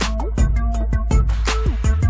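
Background music with a steady beat and sliding synth notes over a deep bass.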